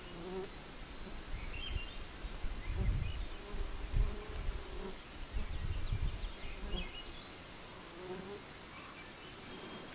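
A fly buzzing around the microphone, its wavering hum coming and going, with a few faint bird chirps and low rumbles about three and six seconds in.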